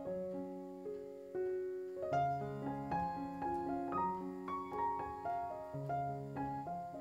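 Background piano music: a slow, gentle melody over changing chords, each note struck and fading.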